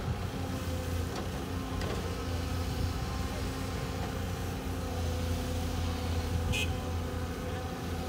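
Diesel engine of a Caterpillar hydraulic excavator running steadily as the machine works its boom and bucket, with a brief sharp high-pitched sound about six and a half seconds in.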